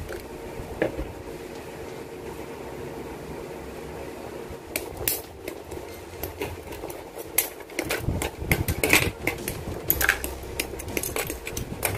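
Hard plastic clicks and snaps from a model-kit runner being handled and parts being cut off it with side cutters, coming thick and fast from about five seconds in. Under them runs a steady low hum.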